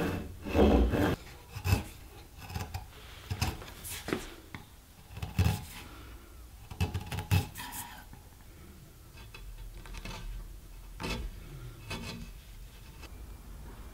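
A hand saw rasping through wood for about the first second, then a chisel paring wood by hand along a curve: a string of short, crisp cuts and snapping chips, unevenly spaced and fading toward the end.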